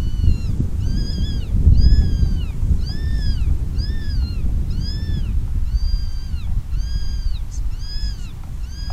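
Electronic predator call playing a meow-like distress cry, repeated at an even pace of about one a second, each cry rising and falling in pitch. A low rumble runs underneath.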